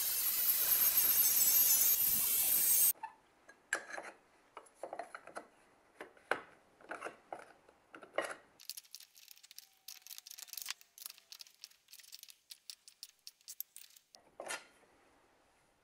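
Angle grinder running on copper pipe, cutting off abruptly about three seconds in. Then scattered light clicks and taps of copper pipe being handled in a steel bench vise, a dense run of fine crackling ticks as thin copper sheet is flexed and pressed by hand, and one knock near the end.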